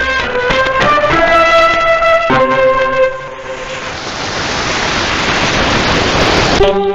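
Instrumental music played over a radio for about three seconds, then a steady hiss of static that grows slightly louder, until music comes back near the end.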